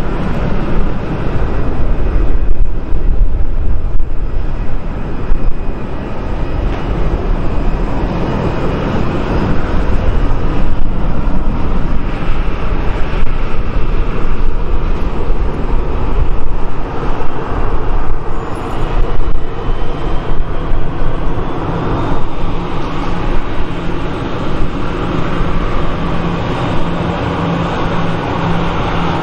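Jet engines of a Eurowings twin-engine airliner at takeoff power during the takeoff roll and initial climb: a loud, steady rumble.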